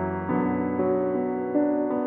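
Slow piano music, with a new note or chord sounding about every half second.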